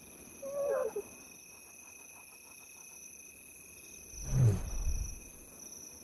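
Lioness giving a soft, low contact call about four seconds in, the sign to her cubs that it is safe to come out. A fainter, higher wavering call comes near the start.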